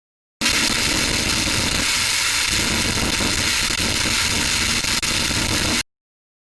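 Hard static: a loud, harsh hiss with a rough crackle underneath that switches on abruptly about half a second in and cuts off suddenly near the end.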